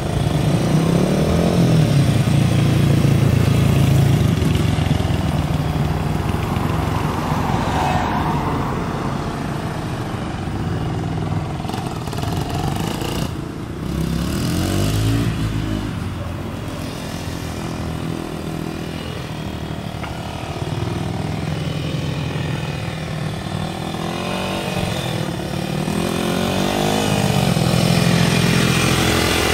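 Small dirt bike engines running and revving as the bikes ride past, rising and falling in pitch. Loudest as they come close, about two seconds in and again near the end.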